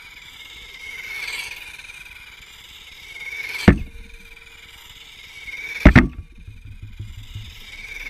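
A radio-controlled buggy's motor whining, swelling and fading as the car drives back and forth past the microphone. Two sharp, loud knocks cut in, one a little before the middle and one about six seconds in.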